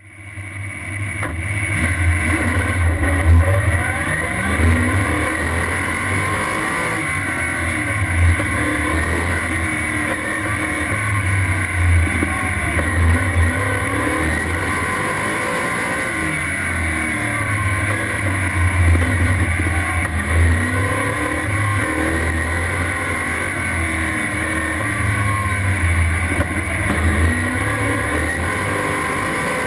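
Race car engine on an autocross run, its pitch rising and falling again and again as it accelerates and lifts between the cones.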